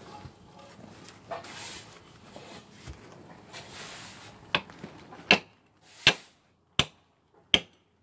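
Hammer driving steel shims between a concrete foundation pier and the slab to lock the pier tight. About halfway through, five sharp metallic strikes ring out, a little under a second apart, after a few seconds of quieter scuffing.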